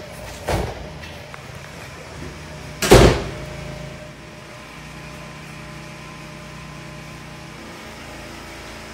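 A phone camera being handled and set down: a soft knock about half a second in and a much louder thump about three seconds in, then a steady low hum of the room.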